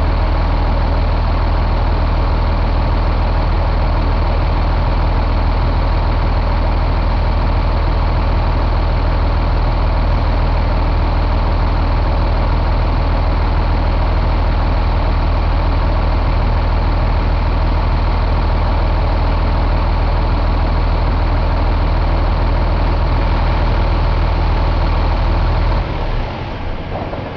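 1999 Cummins ISC inline-six diesel engine idling steadily in a truck, then shutting off about a second before the end.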